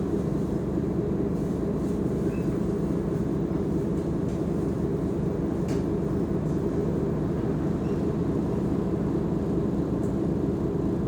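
Mercedes-Benz O345 Conecto G articulated bus's diesel engine running steadily, a low, even drone with no change in pitch, and a faint click about six seconds in.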